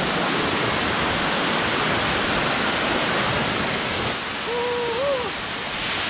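Waterfall and the shallow rocky stream below it rushing steadily. Near the end a man's voice makes one short wordless sound.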